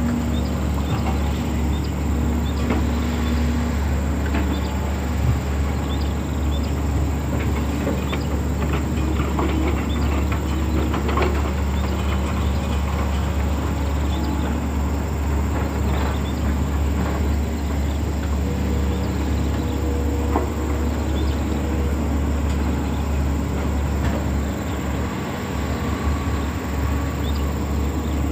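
Excavator's diesel engine running steadily at working revs, with scattered clanks and knocks from the machine as it works.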